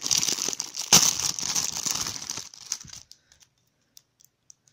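Clear plastic bag crinkling as it is handled, loudest about a second in and dying away after about three seconds, followed by a few faint ticks.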